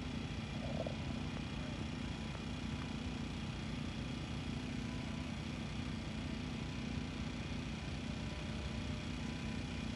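A steady low mechanical hum over a low rumble of background noise, with no distinct events.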